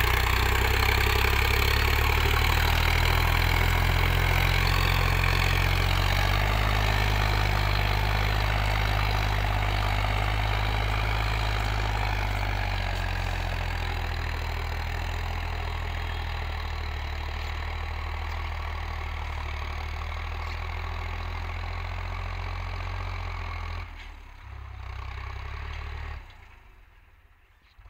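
Sonalika DI 50 tractor's diesel engine running steadily while pulling a seven-tine cultivator through dry soil, slowly fading as the tractor moves away. Near the end the sound drops off sharply, returns briefly, then fades out.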